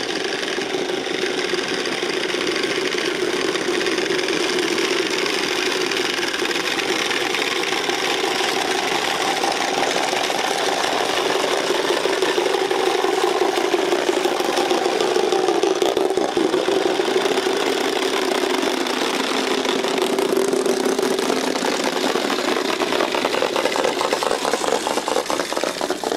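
Wooden Easter rattles (Klappern), cranked by a group at once, clattering in a continuous fast, dense rattle.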